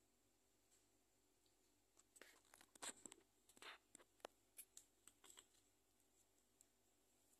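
Faint handling noise: a cluster of scratches, rustles and light clicks starting about two seconds in and dying away after about five seconds, like a hand moving against the phone and the plastic shaker.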